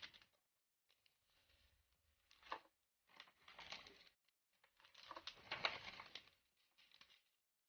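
Faint crinkling and rustling of plastic food packaging being handled, in a few short spells.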